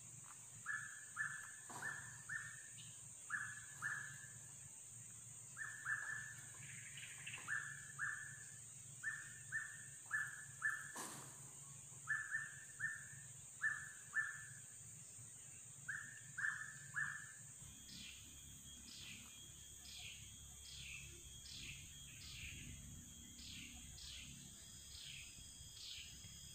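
Tropical forest ambience: a bird gives short falling calls over and over, often in quick runs of two to four, over a steady high insect drone. About two-thirds of the way through, this gives way to a different, higher call repeated evenly about twice a second.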